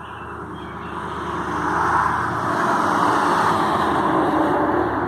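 A road vehicle driving past, its engine and tyre noise swelling over the first two seconds and then holding steady and loud.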